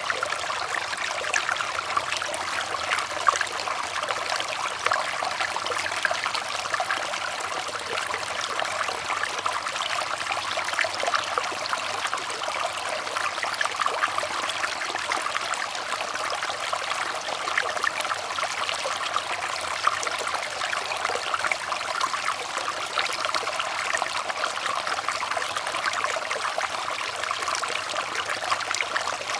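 Running water trickling steadily, a dense, even patter of small splashes with no pauses or changes.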